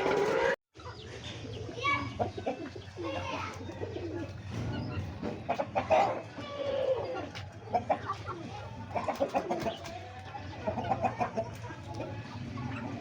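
Chickens and chicks calling in a coop: short clucks and cheeps, one after another with small gaps.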